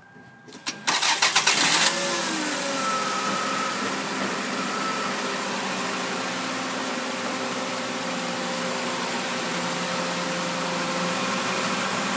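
2001 Toyota Camry's four-cylinder engine cranked by the starter about a second in, catching after about a second and then running steadily at idle.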